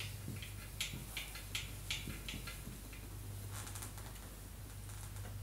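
Dry-erase marker writing on a whiteboard: a run of short, faint scratchy strokes over the first two and a half seconds, then a few more a little after the middle.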